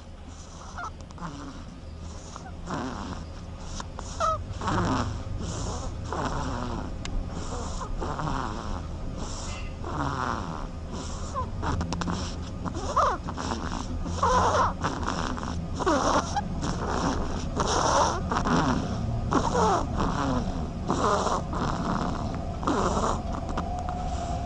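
A sleeping animal snoring in quick, regular breaths about once a second, over a steady low hum.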